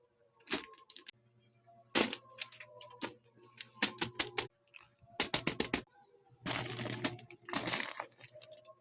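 Fidget toys and their plastic being handled: a series of sharp clicks and snaps, a quick run of clicks about two-thirds of the way in, then two longer crinkling rustles near the end.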